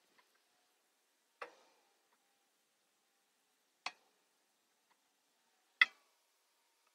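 Three sharp snaps about two seconds apart, the last the loudest: a slingshot being fired to send a fishing line up over a tree branch.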